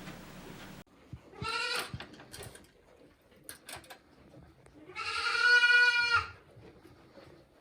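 A goat bleating twice: a short call about a second and a half in, then a longer, louder call about five seconds in. A few light clicks fall between the two calls.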